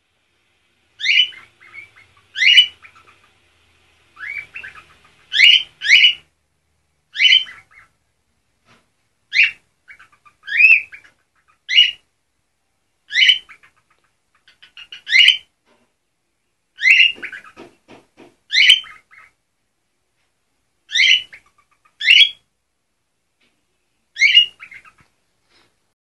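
White cockatoo giving short, harsh calls, repeated about every second or two and sometimes in quick pairs.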